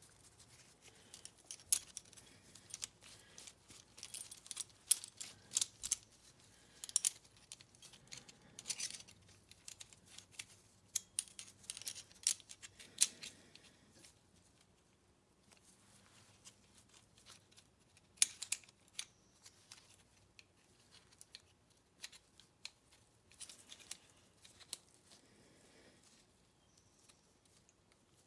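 Scattered light metallic clicks and clinks of hand tools and valve parts being picked up, set down and fitted, as a valve spring compressor is readied on an engine cylinder head. The clicks come in irregular clusters, busiest in the first half and again about two-thirds of the way through.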